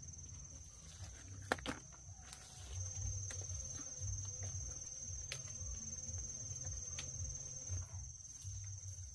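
Outdoor ambience: a steady high-pitched whine over a low rumble, with a few sharp clicks, the loudest about one and a half seconds in.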